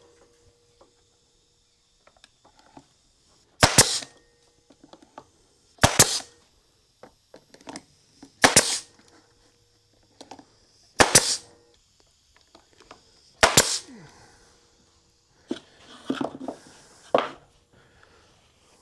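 Six loud, sharp single strikes about every two and a half seconds, then a few softer knocks near the end, as pieces are fastened onto a wooden sawdust chute in a small shop.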